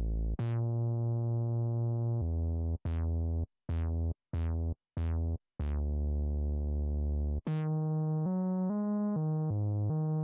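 Mini-G3 software synthesizer playing its 'Bass 17' preset: a line of deep bass notes, each opening with a bright filter sweep that closes quickly. Some notes are held and some are short, with brief gaps. From about seven seconds in, the line moves higher into quick notes that run together without fresh attacks.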